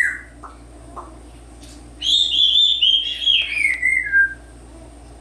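African grey parrot whistling. The tail of a short whistle note comes right at the start, then a few faint clicks, and about two seconds in a loud warbling whistled phrase that slides down in pitch over about two seconds.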